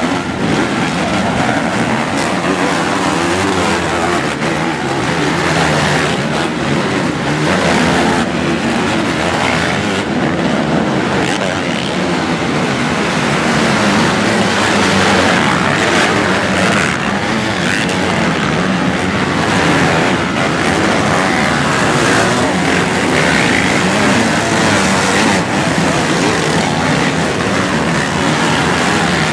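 A pack of motocross bikes racing on the track, many dirt-bike engines running hard at once in a loud, continuous, dense blend of engine noise.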